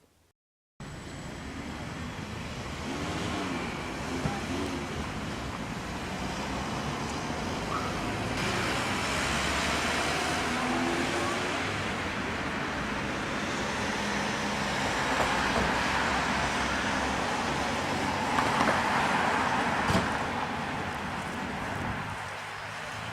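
Steady road traffic noise that starts abruptly about a second in.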